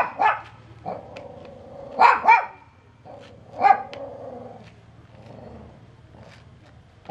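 A dog barking: about four barks in the first four seconds, two of them in quick succession about two seconds in.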